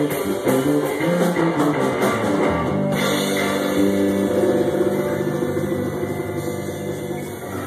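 Live rock band playing, with electric guitar, drum kit and djembe. About three seconds in the drumming drops away and held guitar notes ring on, slowly fading.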